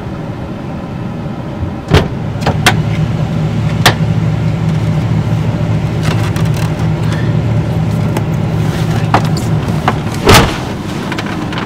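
Hummer H2's V8 idling with the air conditioning running, heard from inside the cab. The passenger door opens with a click about two seconds in, a few knocks follow as someone climbs into the front seat, and the door shuts with a thump near the end, after which the running engine sounds quieter.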